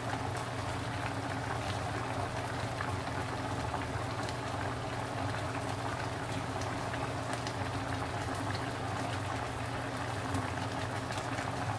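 Stew broth boiling in a stainless steel pot on a gas stove: a steady bubbling with faint scattered pops, over a low steady hum.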